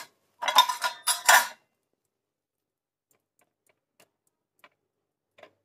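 Electric hand mixer whipping egg foam in two short bursts of about a second each in the first second and a half, then stopping. Afterwards only a few faint clicks as the beaters are handled.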